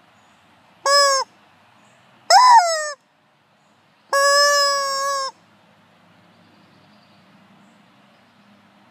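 Rubber chicken squeeze toy squawking three times: a short squawk about a second in, a second that drops in pitch, and a long steady squawk of just over a second starting about four seconds in.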